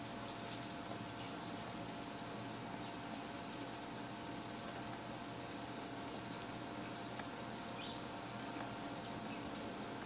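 Steady background hiss with a faint constant hum under it, and a few faint, short high chirps about three and eight seconds in.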